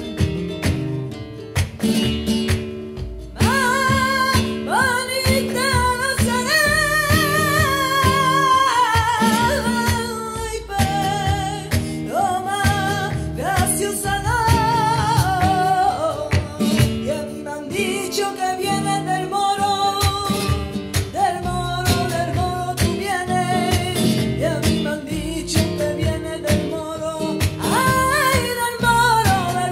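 Flamenco-style song: a voice singing long, wavering, ornamented lines over plucked guitar, the voice coming in about three seconds in.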